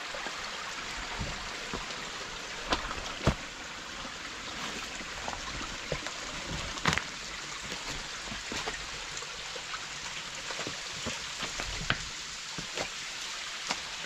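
Shallow creek running and trickling over rocks, with scattered knocks and snaps of footsteps on loose slate and sticks.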